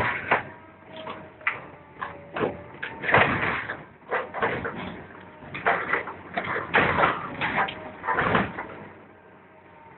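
Hydraulic demolition shear on a crawler excavator biting and tearing into the steel hull of an old deck barge: irregular metallic crunches, creaks and bangs, with brief thin squeals of bending steel. It quietens near the end.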